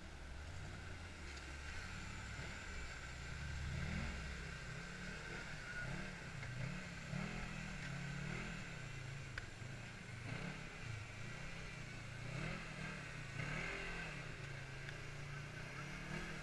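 Side-by-side UTV engine revving up and down again and again as it is throttled over rocks and mud.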